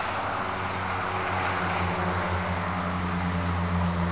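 Chevrolet 454 big-block V8 with throttle-body fuel injection, idling steadily, growing a little louder about halfway through.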